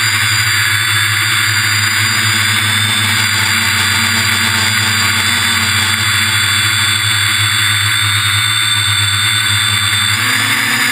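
Quadcopter's electric motors and propellers, heard from the camera on the aircraft: a steady whine and buzz that rises in pitch near the end.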